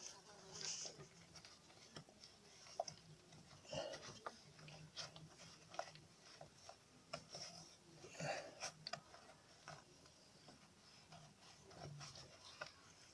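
Faint, scattered clicks, taps and rustles of a hand fumbling with parts under a car.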